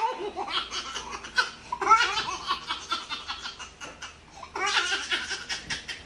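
People laughing hard in rapid repeated bursts, breaking off briefly about four seconds in and then picking up again.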